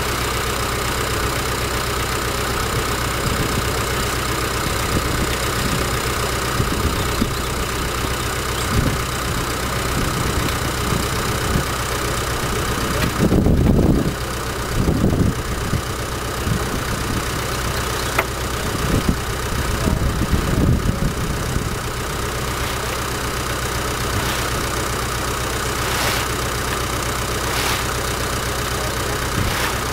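Steady low mechanical hum, like an engine idling, with a few louder low rumbles about halfway through.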